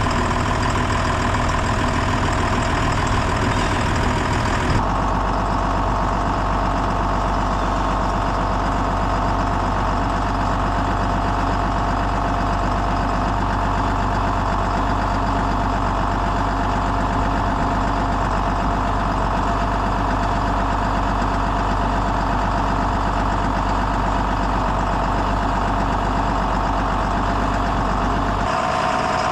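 Diesel engine of a John Deere 7405 loader tractor running steadily while pushing and packing the silage pile. Its sound shifts abruptly about five seconds in and again near the end.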